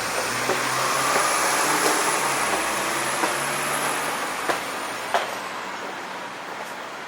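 A large motor vehicle, such as a bus or truck, running past with a low engine hum and a high thin whine; the whine drops away about five seconds in and the whole sound slowly fades.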